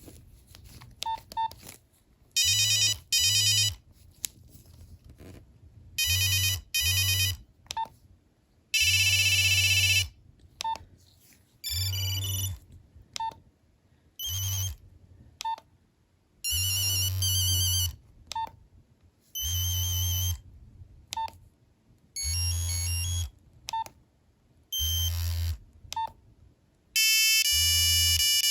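Nokia 3390 monophonic ringtones previewed one after another through the phone's speaker. Each plays a short beeping melody of about a second before cutting off, and a short single beep comes between them. Near the end one ringtone plays on without stopping.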